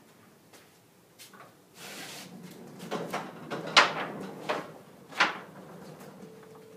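Wooden bifold patio door being folded open: a rolling rumble along its track starts about two seconds in, then five clacks and knocks as the panels fold together, the loudest in the middle.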